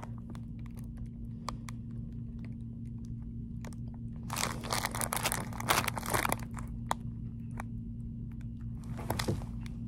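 Crinkling of a plastic snack-cake package (Oreo Cakesters) being handled, loudest in a two-second stretch about four seconds in and again briefly near the end, with scattered small clicks between.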